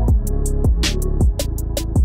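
Electronic background music: a steady beat of deep kick drums over a sustained heavy bass, with sharp percussion hits on top.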